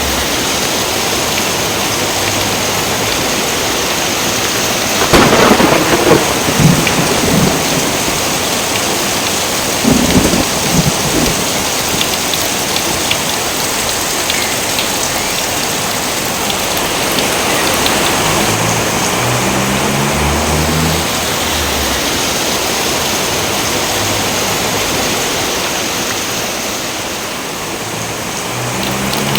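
Steady heavy rain with thunder: a sharp thunderclap about five seconds in and a second, weaker one about ten seconds in, each rumbling off for a second or two.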